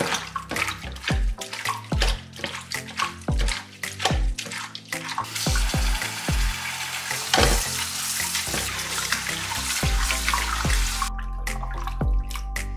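Raw chicken gizzards being scrubbed by hand with coarse salt in a glass bowl, a quick run of wet squishing strokes. About five seconds in, a tap runs water into the bowl to rinse them, then shuts off near the end. Background music plays underneath.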